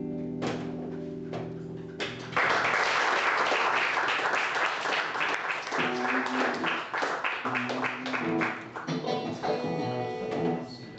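The last acoustic guitar chord of a song rings and dies away, then audience clapping breaks out about two seconds in. Single guitar notes are picked under the clapping as it thins out near the end.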